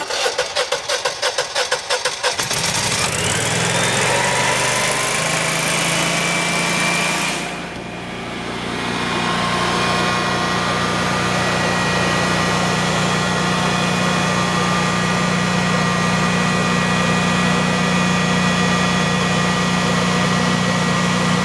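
Honeywell 17 kW automatic standby generator's engine cranked by its starter for about two and a half seconds, catching and rising in pitch as it comes up to speed, then running steadily at its normal 3600 rpm exercise speed. It starts right up, a sign that the choke linkage is setting properly.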